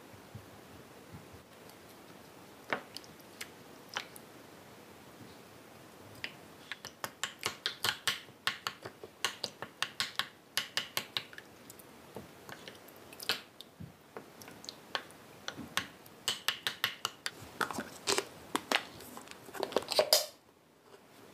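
Wooden spoon stirring and mashing tofu, egg and oats in a ceramic bowl, making quick runs of clicks and taps against the bowl, several a second. Near the end come a few louder clacks from a plastic food container being handled, then the sound cuts off suddenly.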